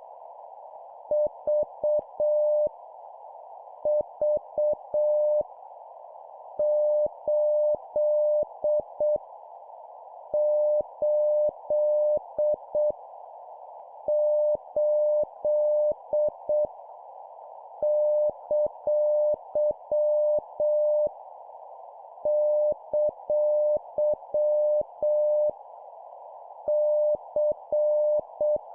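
Morse code (CW) practice tone of about 600 Hz keyed at 7 words per minute, sending dots and dashes in short groups with pauses of about a second between them. Under it runs a steady band of hiss.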